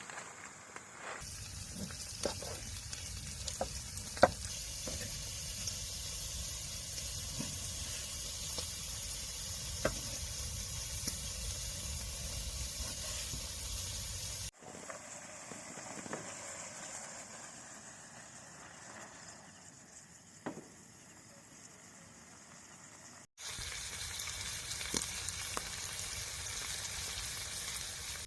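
Steady hiss with scattered sharp pops and clicks, broken by abrupt cuts between takes: about a second in, about halfway, and again about 23 seconds in.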